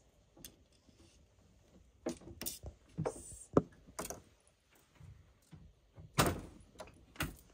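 A string of clicks, knocks and thuds from handling a power cord as the grid input is unplugged from a Bluetti AC500 power station, the sharpest about three and a half seconds in and a heavier thud about six seconds in.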